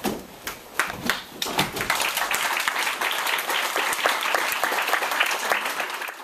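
Audience applauding: a few scattered claps at first, filling out about a second and a half in into steady applause.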